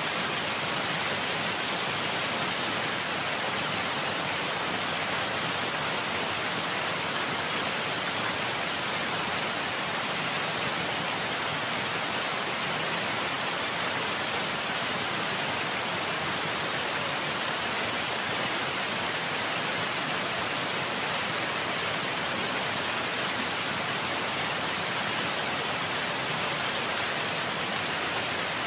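Water rushing steadily: an even, unbroken hiss with no separate drops or splashes.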